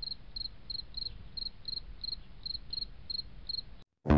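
Cricket chirping in a steady rhythm, about three short high chirps a second, over a faint low hiss. It cuts off abruptly near the end, and a loud guitar music track starts just after.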